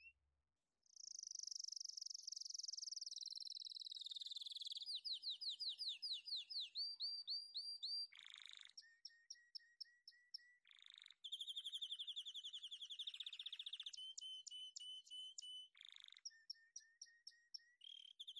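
A songbird singing a long, varied song of high whistled trills and runs of quickly repeated notes that change pitch from phrase to phrase, broken by a few short harsh notes.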